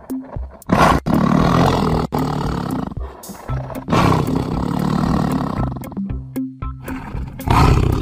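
Tiger roaring in three long, rough roars, over background music with steady low notes.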